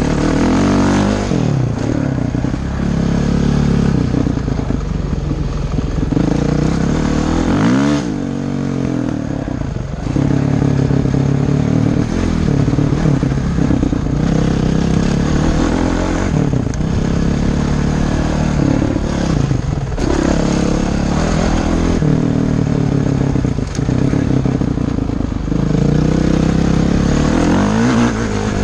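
Honda CRF450X single-cylinder four-stroke dirt bike engine under way, its pitch rising and falling over and over as the throttle is opened and rolled off, with a few brief drops in engine note.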